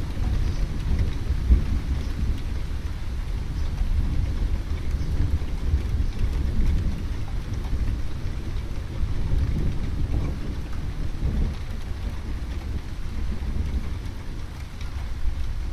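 Thunderstorm: rain falling with a deep, low rumble of thunder underneath that swells and eases.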